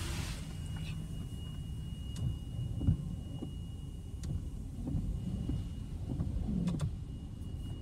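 Cabin noise inside a Toyota 4Runner rolling slowly out of an automatic car wash: a steady low rumble with a faint, thin, steady high whine and a few light clicks and knocks. The rush of the car-wash dryer blowers cuts off in the first moment.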